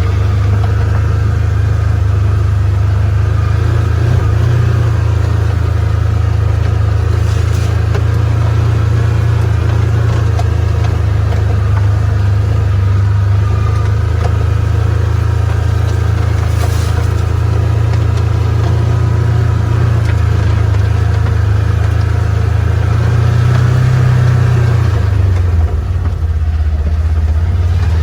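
Polaris 4x4's engine running steadily as it drives, with a low drone; it revs up briefly near the end, then drops back.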